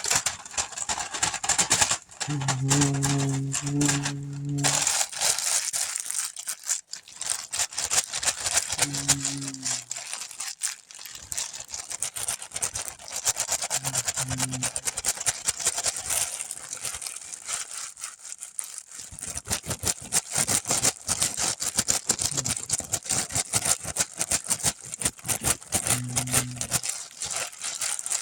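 Loose plastic Lego bricks clicking and rattling as hands sort through a pile of pieces. A few short, low, steady tones sound briefly, about two seconds in and again near the end.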